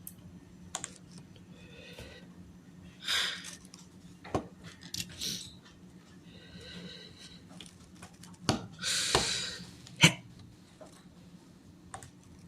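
Plastic Lego Technic pieces clicking and clattering as they are handled and fitted, with scattered sharp clicks, the loudest about ten seconds in, and a couple of short rustling bursts.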